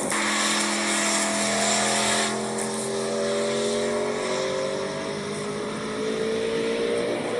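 Bugatti Tourbillon's 8.3-litre naturally aspirated V16 accelerating through a gear: a sharp drop in pitch right at the start marks an upshift, then the engine note climbs slowly and steadily.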